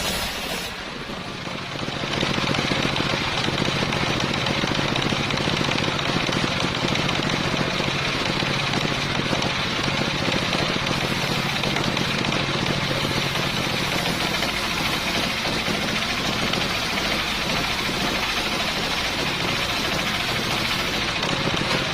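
Engine-driven homemade circular saw rig running steadily, with a brief dip in level about a second in.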